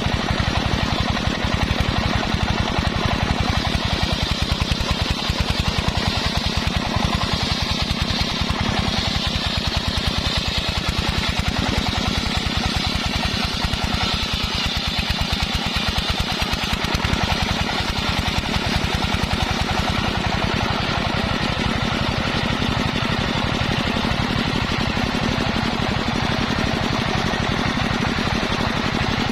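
Engine-driven homemade circular saw rig running steadily with a rapid, even pulse while its blade saws waru (sea hibiscus) timber.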